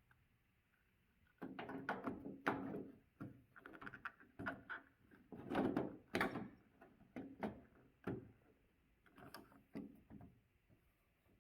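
Plastic car door handle being worked in and out of its opening in a Honda Del Sol door, an irregular run of knocks, clicks and rattles over most of the stretch.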